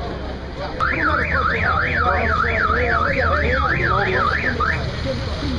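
Electronic siren tone wailing up and down about twice a second for about four seconds, starting about a second in and stopping near the end, over a low engine rumble.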